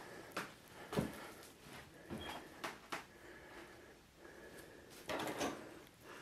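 Footsteps and light knocks on a floor littered with debris, as scattered short thuds and clicks in the first few seconds, then a brief rustle about five seconds in.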